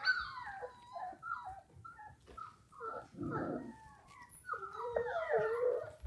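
Young German Shorthaired Pointer puppy whining and whimpering in a string of short high cries, with a longer falling whine about five seconds in.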